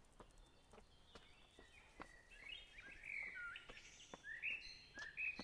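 Faint bird calls: a run of short notes that slide up and down in pitch, starting about two seconds in, over faint scattered ticks.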